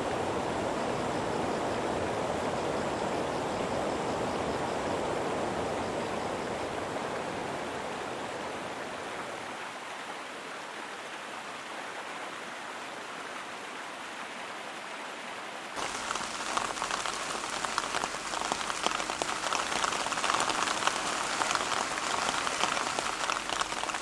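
Water rushing and splashing down a small cascade into a stream, easing off somewhat partway through. About two-thirds of the way in it cuts suddenly to heavy rain falling, a dense crackling patter.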